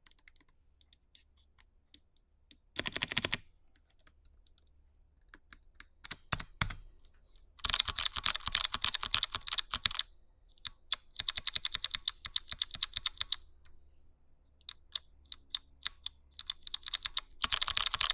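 Typing on a RAMA Works M65-A mechanical keyboard with SMK 2nd Gen White clicky switches, crisp with a double click, under cherry-profile GMK keycaps in a solid aluminium case. Fast runs of keystrokes alternate with scattered single key presses and short pauses.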